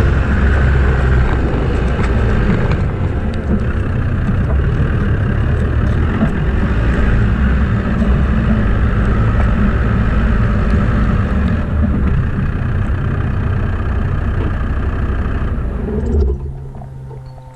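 Land Rover Discovery 2 driving slowly over a dirt track and onto grass: a steady low rumble of engine and tyres. The noise drops away sharply near the end.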